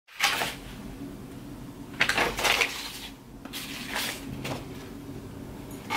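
A few short knocks and clatters of something being handled at close range: one near the start, a cluster about two seconds in, a couple more around four seconds and one near the end, over a low steady hum.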